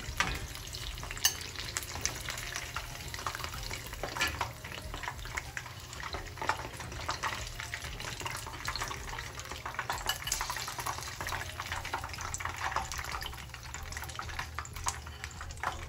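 Batter-coated chicken and loose crumbs deep-frying in hot oil in a wok: a steady crackling sizzle with scattered sharper pops and clicks.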